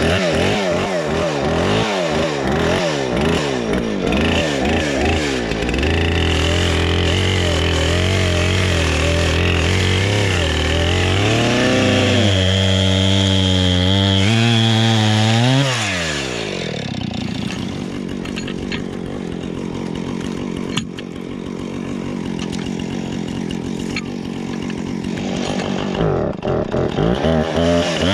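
Two-stroke gas chainsaw cutting a dead lodgepole pine log: revved up and down at first, then held at high revs in the cut with its pitch wavering. About halfway through it drops back to idle, then revs up and down again near the end.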